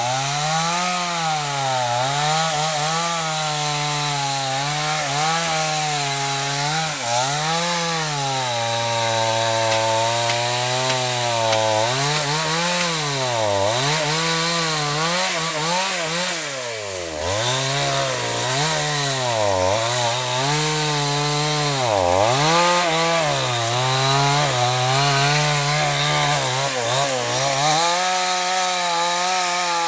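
Two-stroke chainsaw cutting wood, its engine pitch rising and falling continually as it is loaded in the cut and revs back up. The pitch drops deeply about halfway through and again a few seconds later, as the saw bogs down under load.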